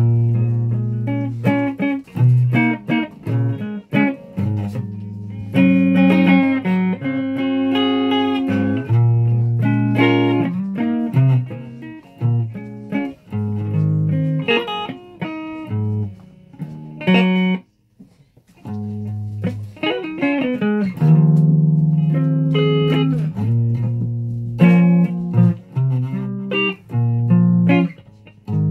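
Guitar music: a run of plucked notes and chords, with a short break about two-thirds of the way through.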